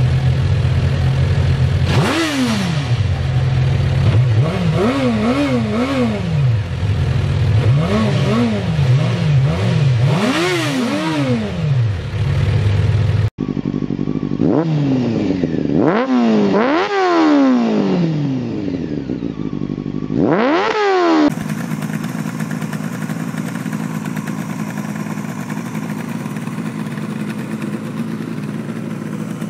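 Suzuki GSX-R sport bike engine revved over and over with quick throttle blips, the pitch rising and falling many times. After a cut comes another run of sharp revs. Then a Yamaha RD350 two-stroke twin runs steadily, without revving, for the last several seconds.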